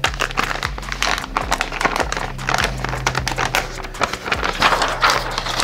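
Clear zip-top plastic bag being pulled open and handled, its thin plastic crinkling and rustling in irregular bursts, over a steady low hum.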